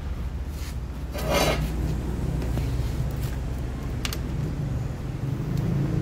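Steady low workshop hum with a brief scrape about a second in and a light click at about four seconds.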